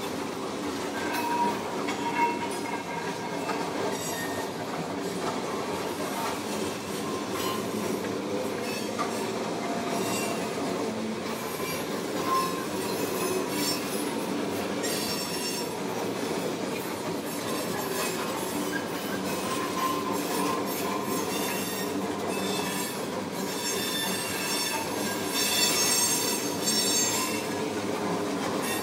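Freight train of tank cars rolling steadily past, steel wheels running on the rails. High-pitched wheel squeal comes and goes and is strongest near the end.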